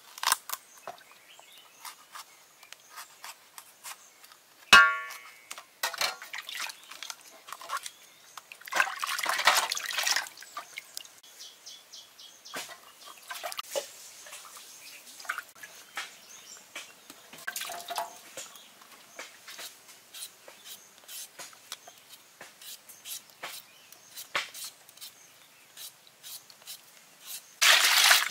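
Vegetables being washed and handled in a metal basin of water: scattered small clicks and taps, water splashing now and then, and a short ringing knock about five seconds in.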